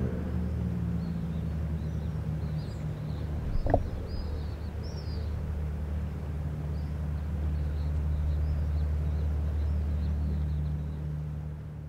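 Steady low engine drone of fast patrol boats running offshore, with faint bird chirps over it and a single short knock about four seconds in.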